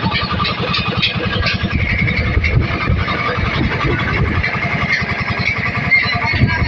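A small engine running steadily with a fast, even firing beat, loud and close.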